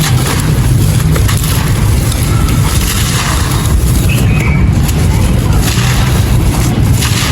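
Light grey concrete claypot being crushed and crumbled close to the microphone: continuous gritty crunching and crackling with a strong low rumble underneath.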